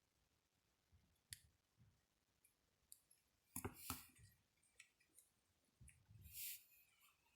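Faint, scattered clicks and light scrapes of small tools and smartwatch parts being handled, with a few louder ticks about three and a half seconds in and a short scrape near six seconds.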